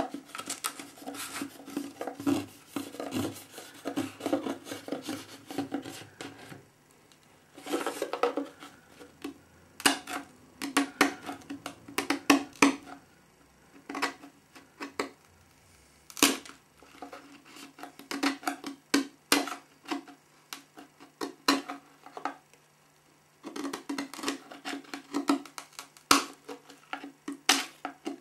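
Sharp chisel scraping and cracking cured epoxy flashing off the seam of a fibreglass moulding, in clusters of short irregular strokes with a few brief pauses.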